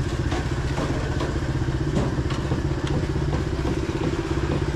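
A motor running steadily with a low, evenly pulsing hum, with a few light clinks of metal utensils on top.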